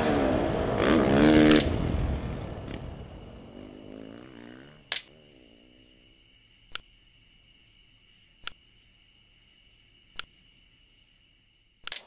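Dirt bike engine revving up and down, then fading away with a falling pitch. It is followed by faint sharp clicks about every second and a half over a faint steady high hum.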